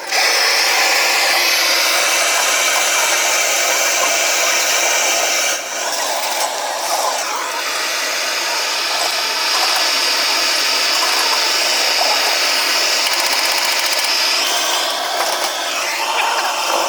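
Loud, steady hissing whir of a tool at work. It starts abruptly and dips briefly about five and a half seconds in.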